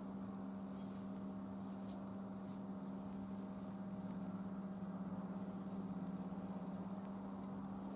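A steady low electrical-sounding hum, with a few faint clicks and light rustling of climbing gear being handled, carabiners and cord.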